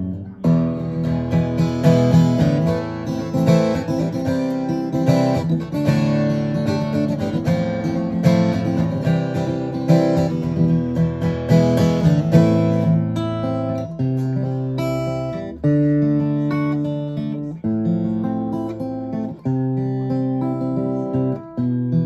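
Martin DRS-1 Road Series dreadnought acoustic guitar being played: busy chord playing at first, then from about 13 seconds in slower chords, each strummed once and left to ring.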